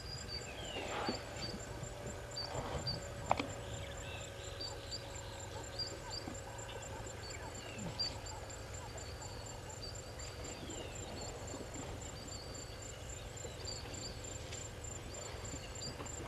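Outdoor ambience at a waterhole: short bird chirps repeat every second or so over a steady, high-pitched pulsing trill. There are a few soft knocks in the first few seconds.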